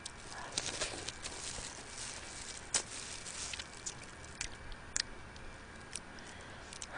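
Close-miked eating of steamed swimming crab: wet mouth sounds as meat is bitten and sucked from the shell, broken by irregular sharp clicks.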